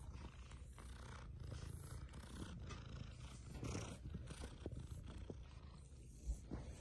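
A cat purring: a low, steady rumble. There is one short bump about six seconds in.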